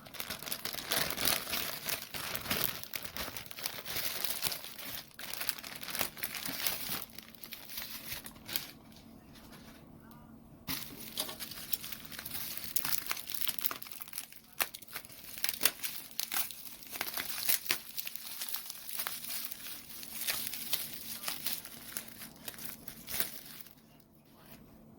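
Bubble wrap being crinkled and pulled apart by hand, a dense irregular rustling and crackling with a couple of short lulls.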